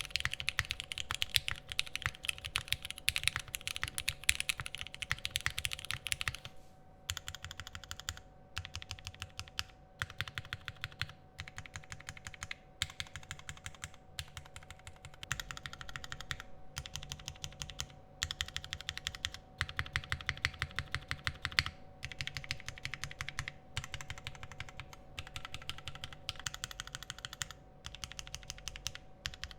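Typing on a Sangeo 60 gasket-mount mechanical keyboard with lubed and filmed Cherry MX Hyperglide Black linear switches. Fast, continuous keystrokes for about the first six seconds, then shorter bursts of typing with brief pauses between them, over a faint steady hum.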